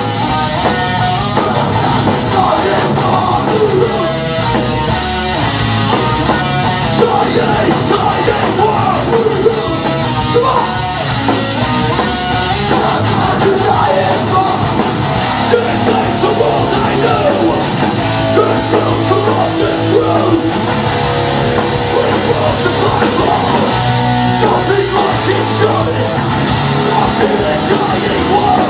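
Hardcore/metalcore band playing live: distorted electric guitars, bass and drums, loud and continuous.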